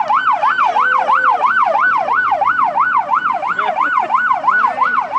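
Electronic yelp siren sweeping quickly up and down, about four times a second, loud and continuous.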